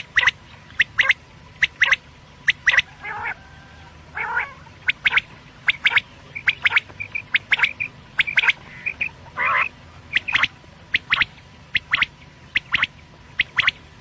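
Quail calling over and over: quick, sharp notes, often in close pairs, with a few longer, harsher calls at about three, four and nine and a half seconds in.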